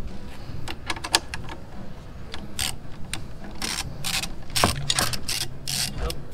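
Ratchet wrench clicking in short irregular bursts as a bolt is turned on a motorcycle's front mounting bracket.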